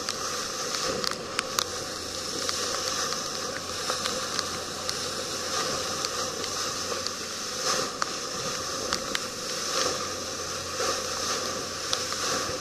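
Water hissing and rushing past a moving boat's hull over a steady low hum, with a few sharp ticks in the first two seconds.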